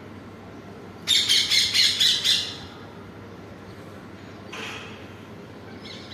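Parrot squawking: a loud, rapid run of about six harsh calls a second in, then two fainter single calls later on.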